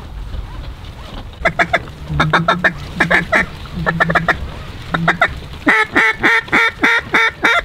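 Mallard duck call blown hard by a hunter: scattered groups of quacks, then from about six seconds in a fast, even run of loud quacks, about four a second.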